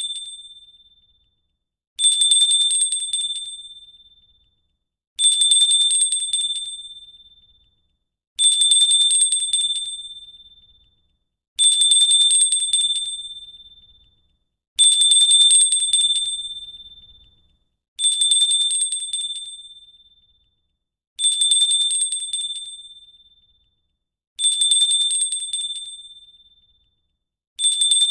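Small brass hand bell rung briefly, nine times at even spacing about three seconds apart. Each ring is a high, clear tone that starts sharply and fades out over about two seconds.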